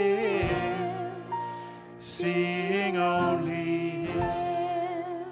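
A hymn sung slowly with instrumental accompaniment, the last words of the final line held on long notes.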